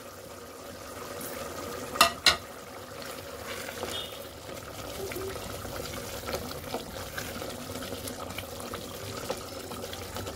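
Wooden spoon stirring bubbling mutton gravy in an aluminium pressure-cooker pot, the liquid sloshing and spattering. There are two sharp knocks about two seconds in, a fraction of a second apart.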